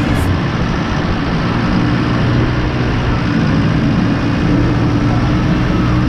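Claas Arion 530 tractor's diesel engine running steadily as the tractor drives along the road, a loud, even drone with a low hum.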